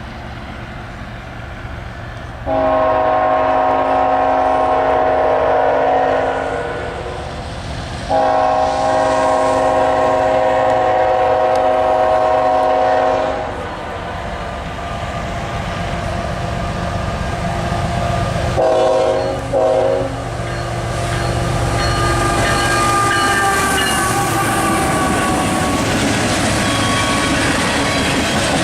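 A diesel freight locomotive sounds its air horn in two long blasts and then two quick short ones, over the steady rumble of its engines. After the horn, the noise of the train's wheels on the rails builds as the locomotives draw near and pass.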